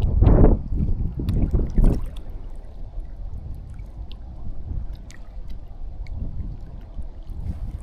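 Wind buffeting the microphone: heavy low gusts for about the first two seconds, then easing to a softer steady low rumble.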